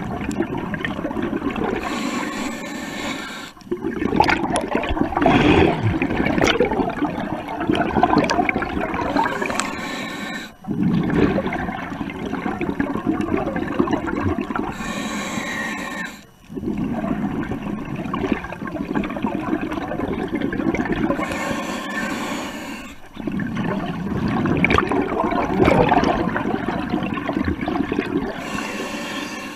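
Scuba diver breathing through a regulator underwater: the hiss of each inhale, then a long bubbling gurgle of exhaled air, about every six to seven seconds.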